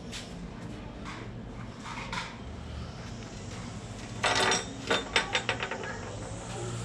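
Metal parts of a swing arm hub knocking and clinking as they are handled and fitted together: a short clattering rattle about four seconds in, then a quick run of clinks that die away.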